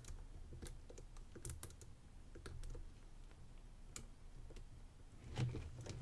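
Faint, irregular clicks of the brass number wheels of a Yale 150/40 combination padlock being turned a notch at a time under shackle tension, as the wheels are felt for their gates.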